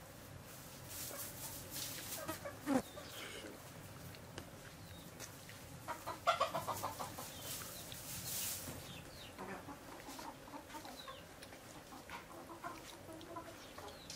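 Chickens clucking, with a quick run of clucks about six seconds in.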